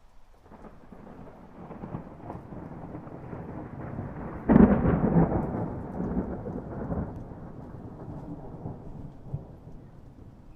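Thunder rumbling over steady rain. A sudden loud clap of thunder comes about four and a half seconds in and rolls away over the next few seconds.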